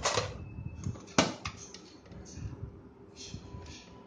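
Metal clicks and short scrapes as a hand tool works against an aluminium LED downlight housing and its spring clip, with one sharp click about a second in.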